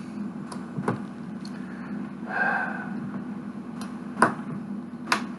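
Plastic Lego pieces clicking as they are handled and pressed together: four sharp clicks, the loudest a little past the middle, with a brief softer rustle about halfway through, over a steady low hum.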